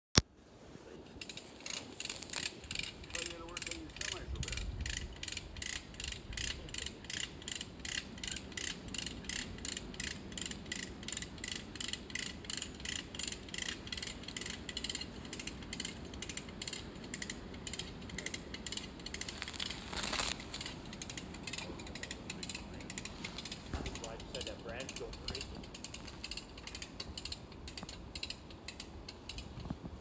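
Hand ratchet cranked over and over, clicking steadily about two to three times a second as it tightens a strap pulling on a leaning tree to bring it down. The clicks grow fainter toward the end, and a short rushing noise comes about two-thirds of the way through.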